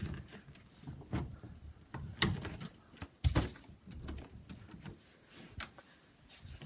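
Fidget toys being handled close to the microphone: scattered clicks, taps and rustles, with a louder rattling burst a little after three seconds in.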